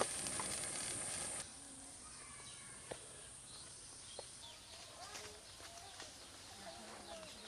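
Outdoor rural background with birds chirping and calling, and a couple of sharp clicks. For the first second and a half a steady high hiss runs over it, then stops abruptly.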